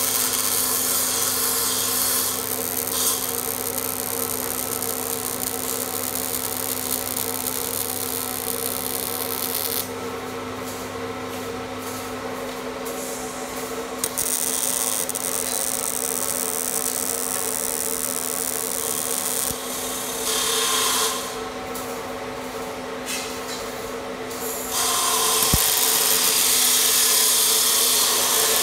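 Robotic MIG welding arc on steel tubing: a steady crackling hiss that stops and starts again several times as the robot finishes one weld and strikes the next. A constant steady hum runs underneath.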